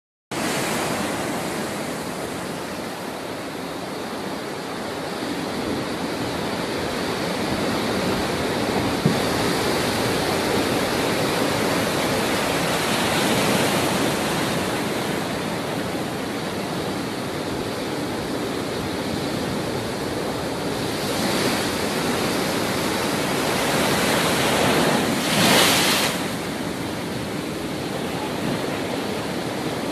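Heavy storm surf in a cyclone: a continuous rush of breaking waves crashing against a pier, mixed with wind. There is a louder surge about 25 seconds in.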